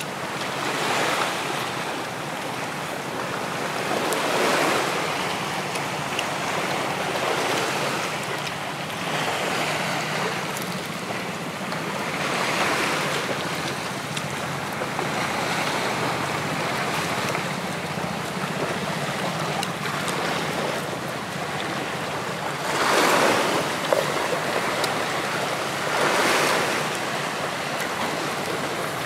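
Surf washing onto a sandy beach, the noise swelling and ebbing every few seconds as waves break, with some wind.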